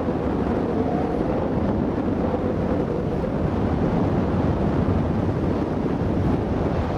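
Steady wind rushing over the microphone of a parasail rider high above the sea, with a faint wavering hum in the first few seconds.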